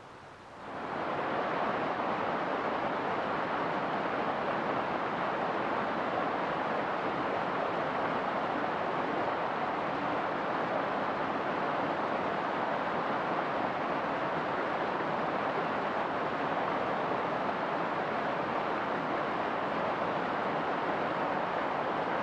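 Hot-spring-fed stream rushing over rocks: a steady, even rush of water that swells in over the first second and then holds.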